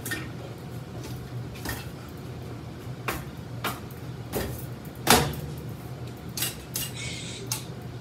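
Ceiling fan running with a steady low motor hum, with about ten sharp, irregular knocks and clacks as its spinning blades strike hands held up into them; the loudest comes about five seconds in.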